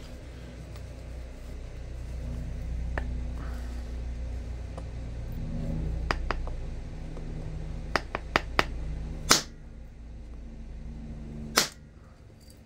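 Flint knapping with an antler punch: a scatter of light clicks of antler on flint, then two sharper blows on the punch about two seconds apart near the end, driving off a flake.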